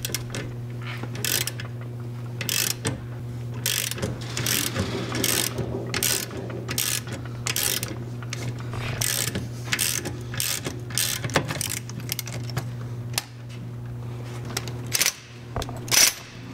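Ratchet wrench clicking in short bursts, roughly two a second, as it turns the forcing screw of a C-clamp ball joint press. The press is pushing a worn rear ball joint out of a BMW E39 wheel carrier. A steady low hum runs underneath and fades out about two-thirds of the way in.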